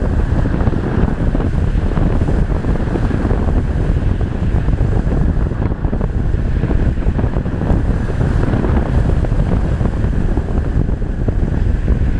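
Steady, loud wind rushing over a GoPro's microphone, the airflow of a model sailplane's flight, with no motor tone in it.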